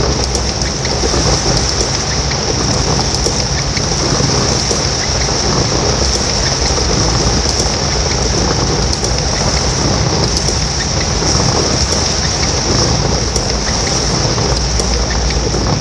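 Heavy downpour: a steady, loud rushing hiss with scattered sharp drop ticks over a constant low rumble.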